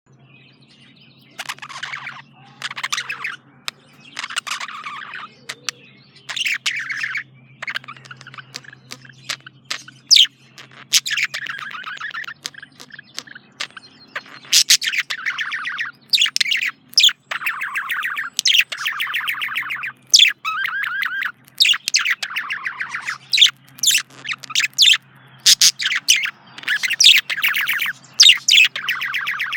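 Male budgerigar chattering: a long string of warbles, chirps and sharp clicks in short bursts with brief gaps.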